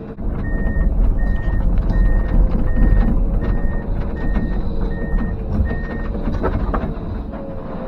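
A heavy-equipment backup alarm beeps eight times at one steady pitch, about one beep every three-quarters of a second, over the loud low running of a diesel engine. A couple of sharp cracks come near the end.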